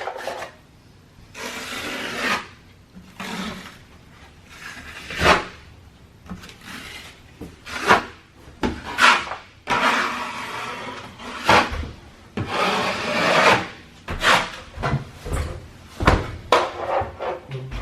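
Hand tools working drywall: irregular rough scraping and rubbing strokes, a few of them drawn out for about a second, with sharp knocks and taps in between.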